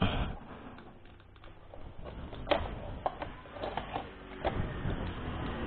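A few scattered light clicks and knocks from hands fitting parts and wiring on a motorcycle during a horn and relay installation.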